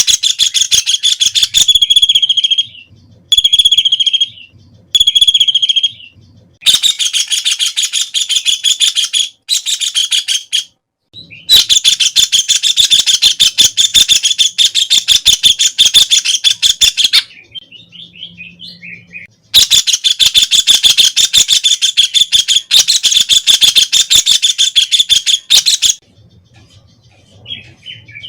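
White-throated kingfisher (Halcyon smyrnensis) calling loudly in rattling trills of rapid, high notes. Three short phrases come first, then three long runs of several seconds each, with brief pauses between them.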